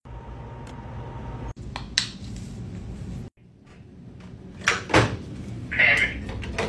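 Plastic handling clatter: a Zebra handheld scanner knocked and clicked as it is taken out of its charging dock, with two sharp knocks in quick succession a little past the middle.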